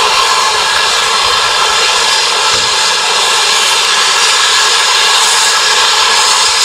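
Safety valves of the GWR King class 4-6-0 No. 6023 King Edward II blowing off while it stands: a loud, steady hiss of escaping steam, a sign that the boiler is at full pressure.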